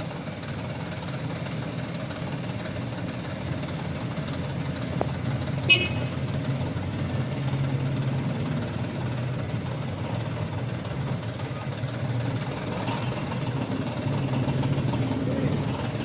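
Diesel engine of a Mitsubishi Canter light dump truck running steadily at idle while its tipper body is raised to unload sand. A single short, sharp knock about six seconds in.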